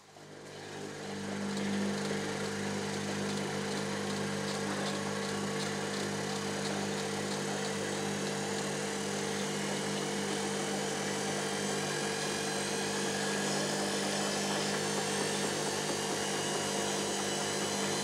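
Front-loading washing machine on its spin cycle: the motor and drum start up and build over about two seconds into a steady high-speed whir with a low multi-tone hum.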